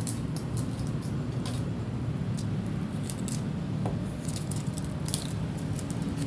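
Phone packaging being handled: scattered small crinkles and clicks over a steady low background rumble.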